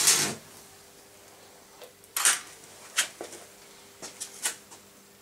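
A short burst of welding-arc crackle at the start, then a few scattered sharp metallic clinks and knocks over a faint steady hum.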